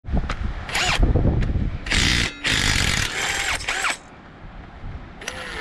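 Ridgid cordless power tool running in several short bursts, speeding up and slowing down, as it backs bolts out of the tractor's frame.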